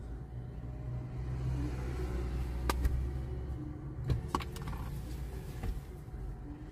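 Low rumble of a car idling at a red light, heard from inside its cabin, with cross traffic passing in front. The rumble swells between about one and four seconds in, and a few sharp clicks come near the middle.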